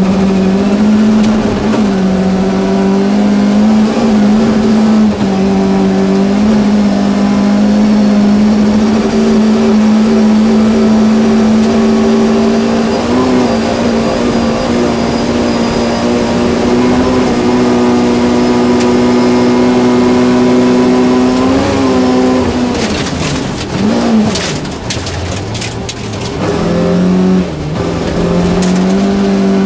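Volvo 240 rally car's engine at full throttle, heard from inside the cabin on a gravel stage. The revs are held high and steady, with brief dips at gear changes. About three-quarters of the way through it lifts off and the pitch falls, with a spell of sharp clatter, then it pulls hard again.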